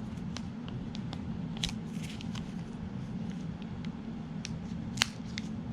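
Scattered light clicks and ticks of an AirPods Pro box and its packaging being handled and opened, with a sharper click about five seconds in, over a steady low hum.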